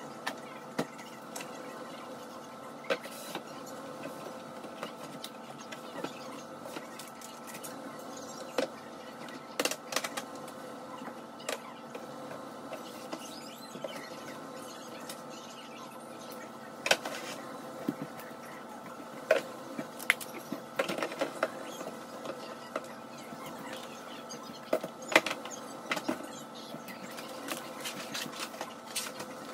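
Scattered knocks, clunks and rustles of food packages and containers being handled and set onto kitchen cabinet shelves, over a steady hum. The knocks are sharpest and most frequent in the second half.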